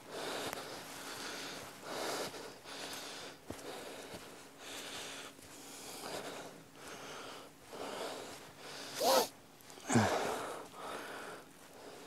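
A person breathing hard and out of breath after climbing a steep hill, with heavy breaths coming about once a second. Two short voiced sounds break in about nine and ten seconds in.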